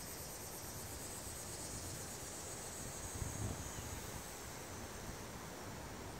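Insects chirring steadily in a high band, over a faint low rumble of distant thunder that swells briefly about three seconds in.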